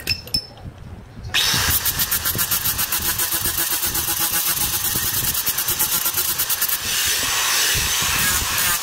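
A few light knocks, then about 1.4 s in a small handheld grinder starts and runs steadily against the sheet-metal body panel, pulsing rapidly as it grinds the hammered-out wheel-arch repair down to bare steel.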